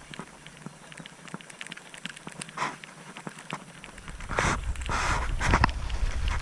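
Light, scattered clicks from a baitcasting reel and rod being handled, then from about four seconds in louder rustling noise with a low rumble as the rod is cast.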